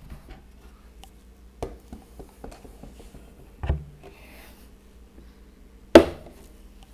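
Plywood panels and the pocket-hole jig being handled and set down: a few scattered wooden knocks and clunks, the loudest a sharp knock near the end.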